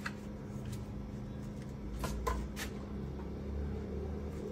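A few short knocks and clatters from a string trimmer's metal shaft and plastic parts being set back against the wall among other trimmers: one right at the start and three close together about two seconds in, over a steady low background hum.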